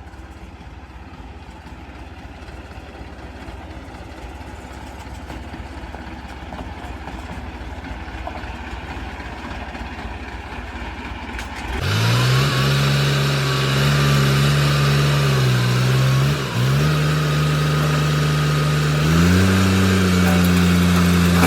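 Heavy diesel engine of earthmoving machinery. A low rumble grows slowly louder for about twelve seconds, then turns suddenly much louder and closer, running with its pitch dipping briefly and rising again as it is revved near the end.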